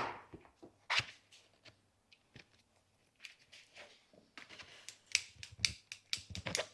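Small sharp clicks and knocks from a bicycle shifter being handled as its shift cable is worked out. One louder click at the start and another about a second in, then a quicker run of small clicks near the end.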